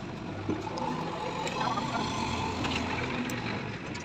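Diesel engine of a JCB 3DX backhoe loader running steadily with a low hum while the loader carries a load on its front bucket.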